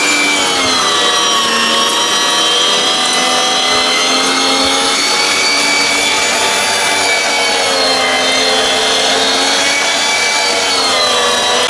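Anex AG-2049 electric meat mincer running and grinding meat, its motor giving a steady whine. The pitch sags about a second in as meat is pressed through and rises again near the end.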